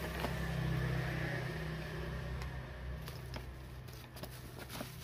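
Light clicks and rustles of hands handling parts in a bubble-wrap-lined plastic tool case, over a steady low hum that slowly fades.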